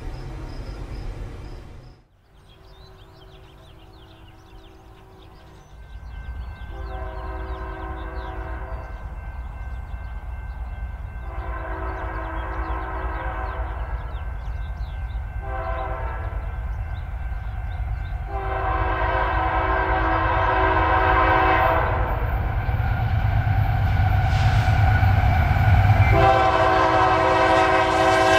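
Nathan K3LA three-chime air horn on a BNSF AC4400CW diesel locomotive sounding for a grade crossing: a series of long chord blasts with one short blast between them, growing louder as the train approaches. Under the horn runs the rising rumble of the locomotives.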